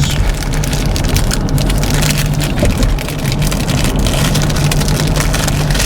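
Dense crackling over the steady low hum of a car driving.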